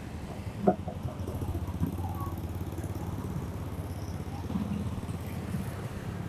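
A small engine running steadily at idle, a low rumble with a fast even pulse, with a single sharp knock about two-thirds of a second in.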